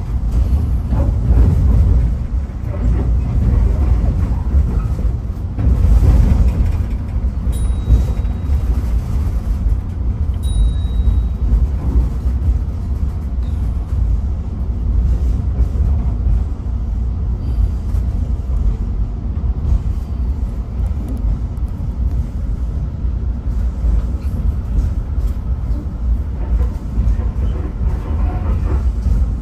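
Caltrain commuter train rolling along the track, heard from the cab car: a steady low rumble, with two brief high squeals about seven and ten seconds in.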